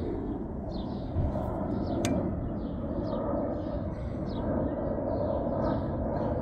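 Sihuadon (XHDATA) D-808 shortwave receiver hissing steadily through its speaker in single-sideband mode on an empty channel: band noise with no signal. Small birds chirp repeatedly over it, and there is a single click about two seconds in.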